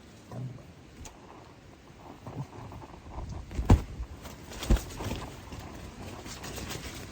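Two loud dull thumps about a second apart, amid scattered small knocks and handling noises.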